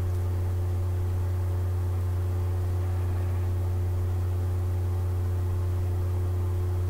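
Steady low hum with several fainter steady tones above it and nothing else.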